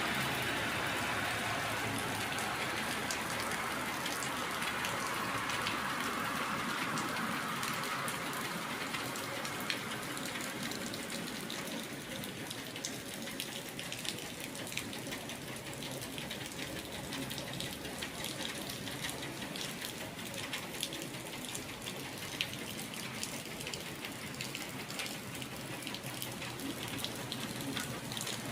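Steady rain falling, with many sharp ticks of individual drops striking nearby surfaces. A louder rushing sound fades away over the first ten seconds or so.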